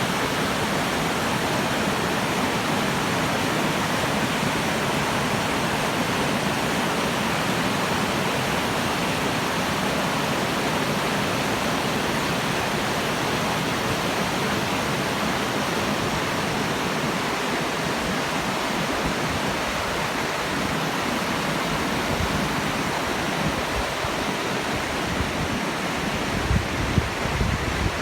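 Stream water rushing steadily. Irregular low buffeting from wind on the microphone comes in near the end.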